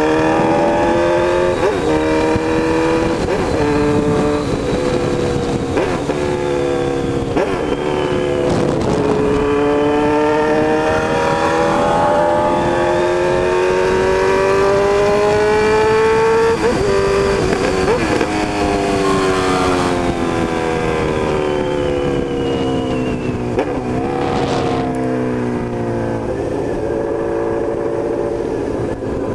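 Honda CB1000's inline-four engine and exhaust under way: it accelerates through several gears, the pitch climbing and dropping back at each shift, then falls steadily as the bike slows and settles to a steady cruise near the end. The exhaust note is loud.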